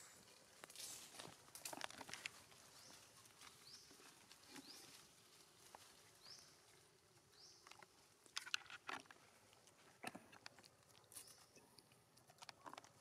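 Faint rustling, crackling and snapping of leaves and twigs as macaques climb and clamber through tree branches, with several short high chirps that rise in pitch.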